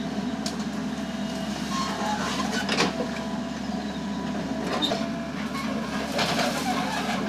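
Foton FR150-7 crawler excavator's diesel engine running steadily under load as it digs, with a few scattered knocks and clanks.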